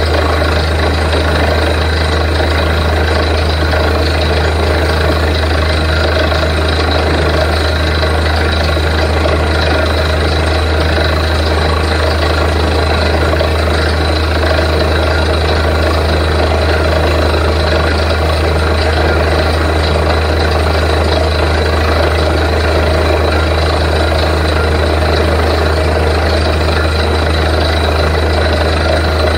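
Truck-mounted borewell drilling rig running steadily at work, its engine and machinery making a loud, unbroken mechanical din with a deep steady hum.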